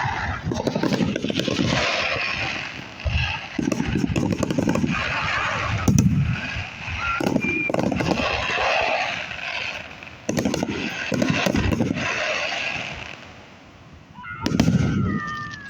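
Fireworks going off in repeated volleys of deep booms and sharp crackling bursts, over a crowd's voices.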